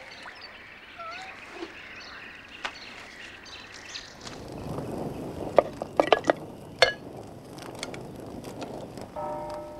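Quiet lakeside ambience from an animated film's soundtrack: a couple of faint bird calls, then about four seconds in a soft wash of water with several sharp knocks and clinks.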